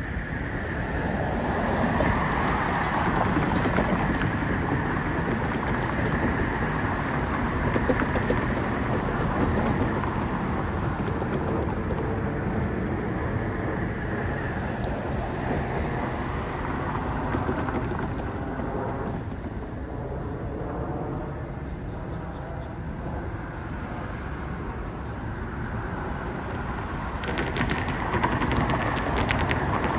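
Steady street traffic noise: cars passing along the road beside a rail grade crossing, swelling and easing, with crackly noise near the end.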